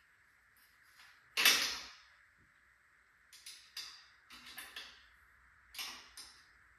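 Hand tools and hardware being handled in a workshop: one sharp loud knock about a second and a half in, then a run of lighter clicks and clacks.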